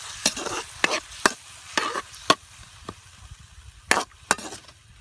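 Spatula stirring sauce in a metal wok, knocking and scraping on the pan about every half second, with a second pair of knocks near the end, over the sizzle of garlic, onion and marinade coming to the boil.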